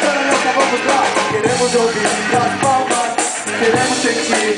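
Live band playing through a PA, with drum kit and guitar, and a vocalist singing into a microphone over it.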